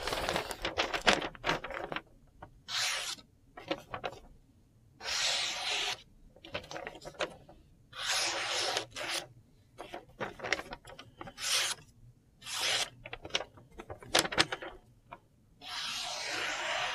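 Freshly sharpened and stropped Spyderco Para 3 Lightweight folding knife slicing through a sheet of lined notebook paper in a sharpness test. There are about a dozen short papery slices, each under a second, with quiet gaps between them and a longer stroke near the end.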